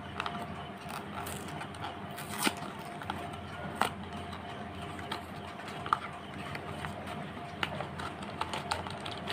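A paperboard Manforce condom box being opened by hand: scattered sharp crackles, snaps and tearing of the card flaps. A faint steady tone sits in the background.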